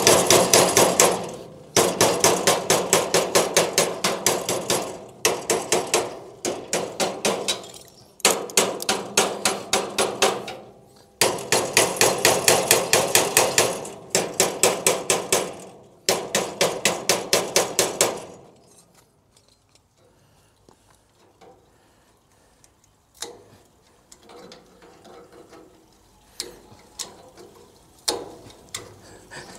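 A hammer beating on metal in rapid runs of ringing blows, several a second, with short pauses between runs. The blows stop about 18 seconds in, leaving a few faint scattered taps.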